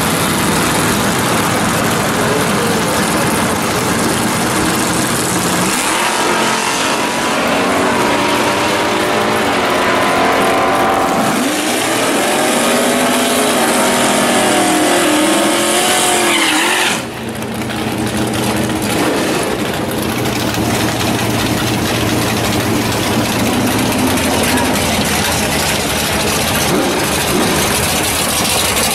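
Drag car's engine running, then revving up and down through a burnout in the water box while its rear tyres spin and smoke. About two-thirds of the way through the sound cuts off abruptly, and another drag car's engine runs steadily at idle.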